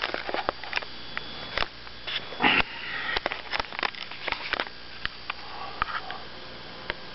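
Knocks and clicks of a handheld camera being picked up and moved, with a person sniffing close by, loudest about two and a half seconds in.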